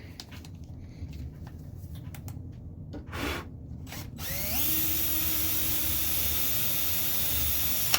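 Cordless drill starting up about four seconds in, its motor pitch rising and then running steady for several seconds before it stops abruptly. Before it, quiet handling noise with two short rustles.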